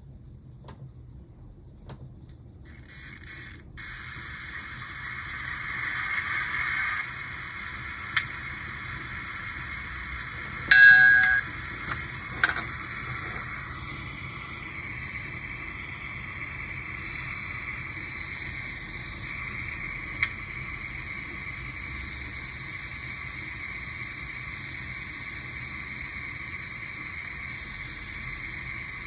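Digitrax SDXH166D sound decoder playing its GP10 diesel prime-mover sound through its small stock speaker, starting about three seconds in: a thin hiss like television static, which the owner blames on a really terrible speaker. About eleven seconds in a brief, loud chime-like tone sounds, and a few sharp clicks are heard.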